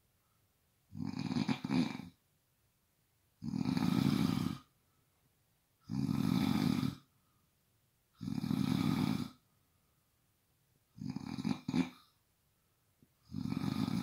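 Snoring in a slow, steady rhythm: six snores of about a second each, one roughly every two and a half seconds, with quiet breaths between. The first and fifth snores sound broken up and fluttery.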